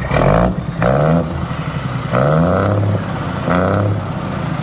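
International truck's diesel engine being revved in four short blips of the throttle, its pitch rising with each blip before falling back to idle.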